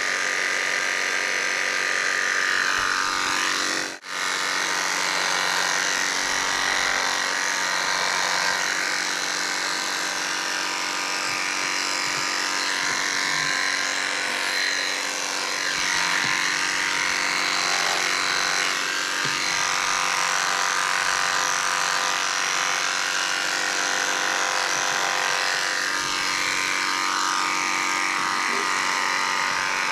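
Electric pet hair clippers running steadily, a continuous motor buzz, with a brief break about four seconds in.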